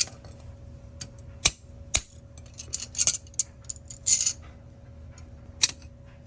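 Small plastic and metal pieces of a broken-apart wireless mouse receiver being handled: scattered sharp clicks and light clinks with a few short rustling scrapes. A faint steady hum runs underneath.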